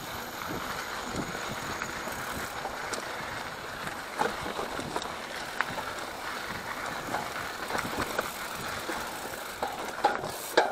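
Mountain bike rolling down a dirt forest trail: steady tyre-on-dirt noise with the bike's chain and frame rattling and a few sharper knocks over bumps.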